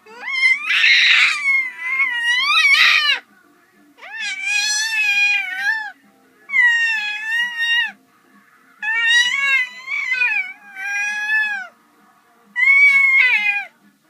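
A domestic cat yowling loudly: about six long, drawn-out calls, each one to two seconds with a wavering pitch, separated by short pauses.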